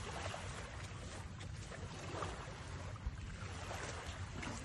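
Steady wind rumbling and hissing on the phone microphone.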